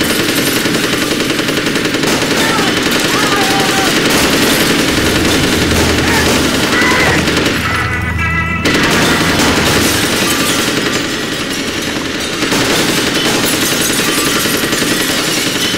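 Sustained automatic gunfire, shots coming in dense rapid bursts. It briefly drops away about eight seconds in.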